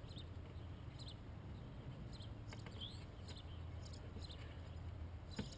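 Small birds chirping: short, high calls dotted through, some sliding in pitch, over a low steady rumble.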